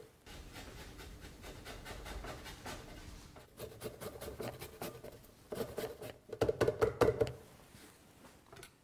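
A lemon being zested over the blender jar: soft, rapid scraping of the peel against a zester, with a quicker, louder run of strokes about two-thirds of the way in.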